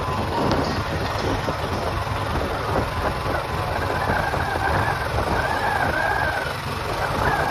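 Vehicle on the move along a road: engine and road noise under a heavy, gusting wind rumble on the microphone.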